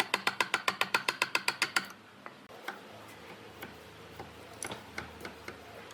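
A fast, even run of sharp mechanical clicks, about seven a second, stops after about two seconds. Scattered lighter clicks and taps follow.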